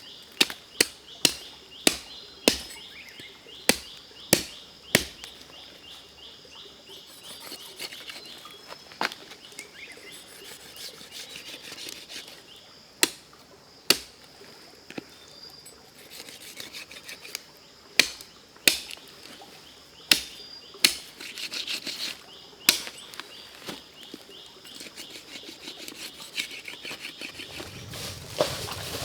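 A blade chopping wood in sharp single strikes: a quick run of about eight blows in the first five seconds, then slower, scattered blows. Insects trill steadily in the background.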